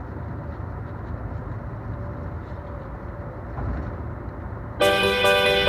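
Steady low rumble of a vehicle driving along a highway. Near the end, plucked guitar music cuts in suddenly and becomes the loudest sound.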